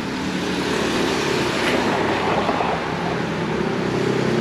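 A motor running with a steady hum that holds several low tones over a hiss.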